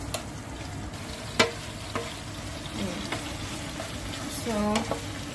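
Strips of raw chicken sizzling in hot oil in a frying pan, stirred with a wooden spatula that knocks against the pan a few times, sharpest about a second and a half in.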